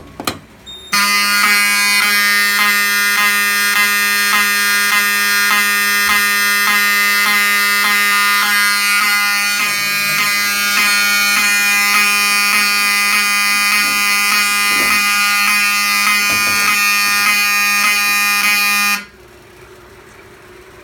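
A pull station's handle clicks sharply as it is pulled. About a second later a Wheelock 7002 fire alarm horn sounds a loud, steady, continuous buzzing tone, the alarm on continuous signal coding. Near the end the horn cuts off suddenly as the audible signal is silenced.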